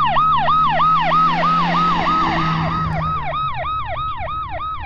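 Ambulance siren in a fast yelp, about three to four quick rising-and-falling whoops a second, over a low steady hum, dropping slightly in level near the end.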